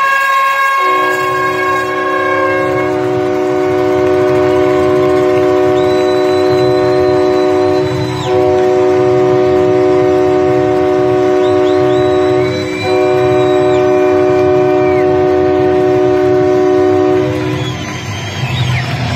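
A loud multi-tone air horn sounding a steady chord for about seventeen seconds, broken twice briefly, typical of an arena horn blasted during hockey player introductions.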